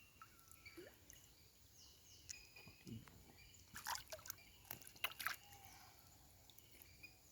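Faint water drips and small splashes, several close together about four to five seconds in, with faint bird chirps in the background.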